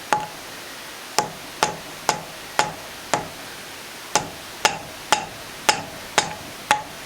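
Hammer tapping on a screwdriver set against a motorcycle drive chain, about a dozen sharp, ringing metal taps roughly two a second with a short pause midway. The blows land on a chain link side plate rather than the master-link clip.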